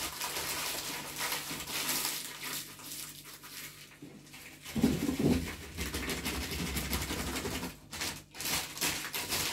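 Paper bag rustling and crinkling as dried linden blossom is shaken through the neck of a large glass jar, with a louder, dull knock about five seconds in.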